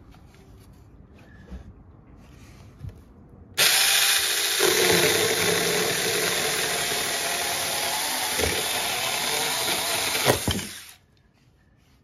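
Saker cordless mini electric chainsaw switched on a few seconds in and cutting through a small wooden sticker, running steadily for about seven seconds before stopping abruptly near the end.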